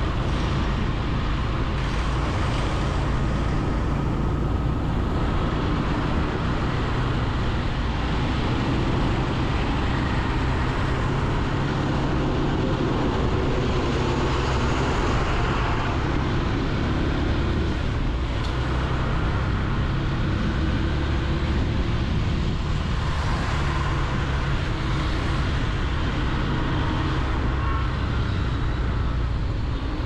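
Motorcycle running steadily while being ridden along a city road, with road and traffic noise around it.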